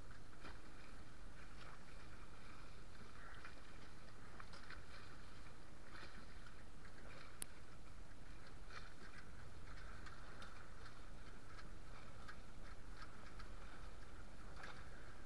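Water rushing and splashing along a small sailboat's hull while sailing, with wind on the microphone as a low rumble. A single sharp click about seven seconds in.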